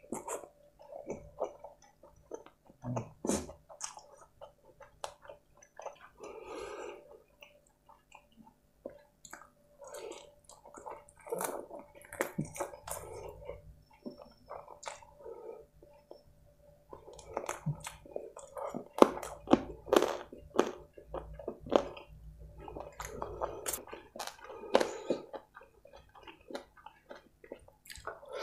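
Close-miked chewing of soft rice and curry, with irregular wet mouth clicks and lip smacks.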